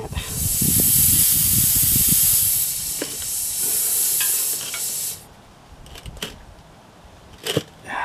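Air hissing out of a nail puncture in a light-truck tire's shoulder, around a Dynaplug plug tool held in the hole, for about five seconds before it stops. A couple of light clicks follow near the end.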